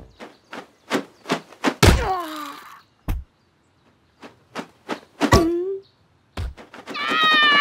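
A quick run of cartoon thuds and whacks, broken twice by a short falling squeal, then a long falling wail near the end.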